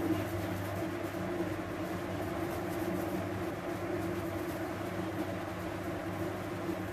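Steady low mechanical hum with a faint hiss, even throughout, like a fan or motor running in the room.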